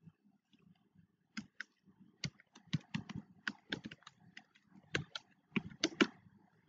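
Computer keyboard typing: a run of irregular key clicks starting about a second and a half in and stopping near the end, as text is typed into a field.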